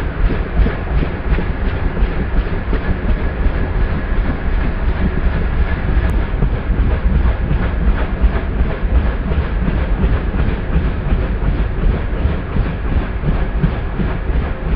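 CH-47JA Chinook tandem-rotor helicopter lifting off and hovering low, its twin turboshaft engines and rotor blades making a loud, steady, fast rhythmic beat.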